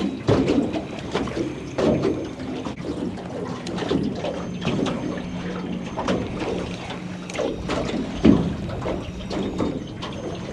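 Water slapping and lapping against a small boat's hull in irregular knocks and splashes, with a faint steady hum underneath.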